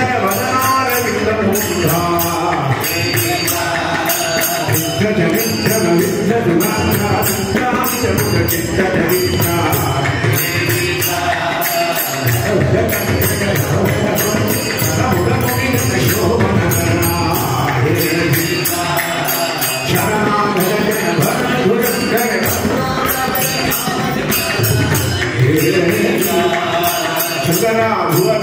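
Group of men singing a devotional bhajan in unison, with small hand cymbals clashing on a steady beat.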